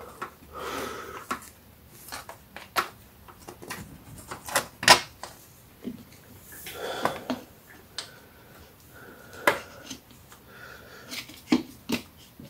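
Irregular clicks and knocks from hands working a fluid fill hose along a transmission case under a car, with some rustling. The sharpest knock comes about five seconds in.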